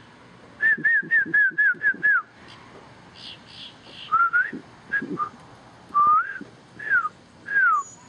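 Clear whistled notes. About half a second in comes a quick run of seven short down-slurred whistles, about four a second. From about four seconds in, separate slurred whistles follow, some rising and the last two falling.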